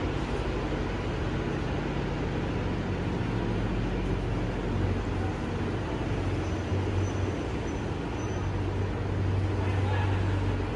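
Indoor ice rink ambience while skaters practise on the ice: a steady low hum under an even wash of noise, with faint voices.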